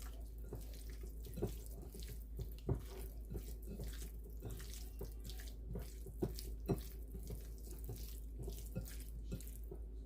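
Seasoned salmon pieces being stirred in a bowl: wet, squelching scrapes with many irregular light clicks of the utensil against the bowl.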